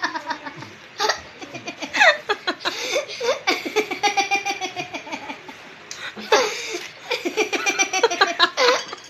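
Several people, children among them, laughing and giggling in long rapid runs, with loud shrieks of laughter about two seconds in, after six seconds and near the end.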